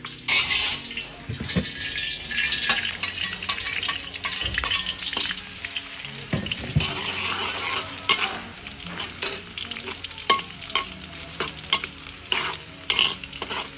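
Food sizzling in a hot pan while it is stirred and tossed with a metal spatula, with frequent scraping clinks of spatula on pan.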